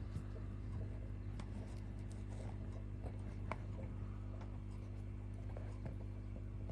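A steady low hum with faint, scattered ticks and scratches, one a little sharper about three and a half seconds in.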